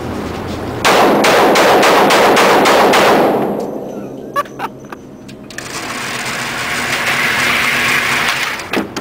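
A burst of rapid gunfire about a second in, lasting about two seconds and fading, followed by a few sharp metallic clicks.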